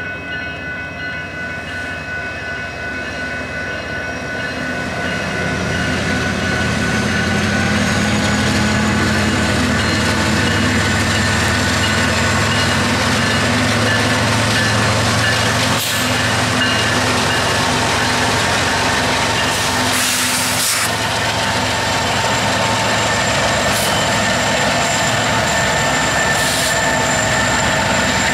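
Diesel-electric freight locomotives running past close by, their engine rumble swelling over the first several seconds as the lead units draw near and then holding steady as they pass. A few short clanks are heard in the second half.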